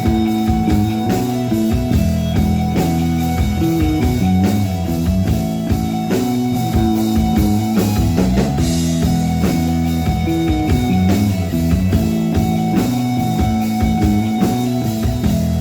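Rock band playing live: electric guitar and drum kit over a moving low line, steady and loud.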